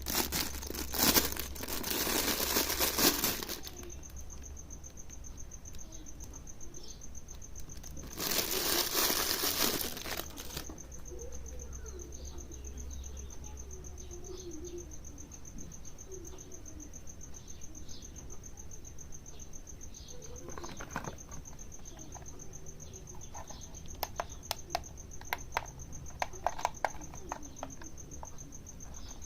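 Plastic packaging crinkling and rustling as it is handled, in two loud bursts near the start and about eight seconds in, followed by quieter handling with scattered small clicks and taps, busiest near the end.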